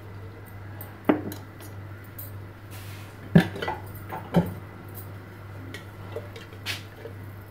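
A spoon clinking against an aluminium cooking pot: a few sharp knocks spaced a second or more apart, over a steady low hum.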